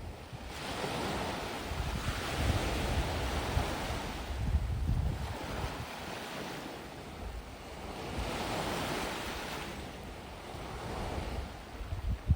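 Gentle waves washing onto a sandy beach, the surf swelling and easing in slow surges, with low wind rumble on the microphone.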